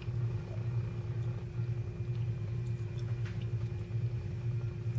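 Steady low electrical hum with a faint constant tone, and a few faint clicks of someone chewing crunchy mixed vegetables.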